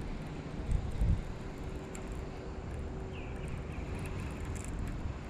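Wind buffeting the microphone: a steady low rumble with stronger gusts about a second in.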